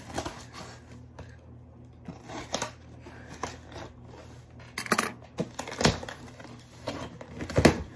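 A cardboard shipping box being cut open and its flaps pulled apart: irregular snips, rustles and scrapes of cardboard, loudest about five, six and seven and a half seconds in.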